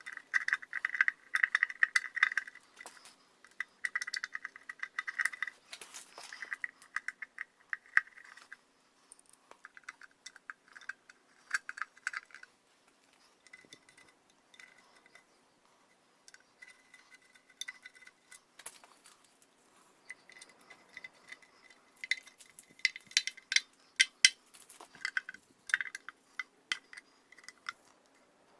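Ratchet wrench clicking in quick runs of a second or two, with scattered metallic clinks of tools and bolts, as the timing cover of a Triumph Spitfire engine is bolted up.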